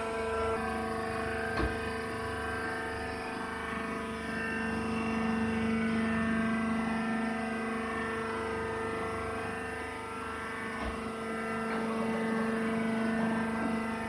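Horizontal wood-shavings baler's electric motor and hydraulic pump running with a steady hum, swelling slightly a few seconds in and again near the end. A single faint knock is heard near the start.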